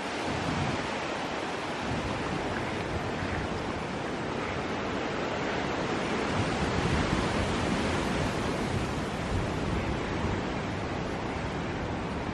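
Hurricane-force wind rushing steadily, with gusts buffeting the microphone in low rumbles.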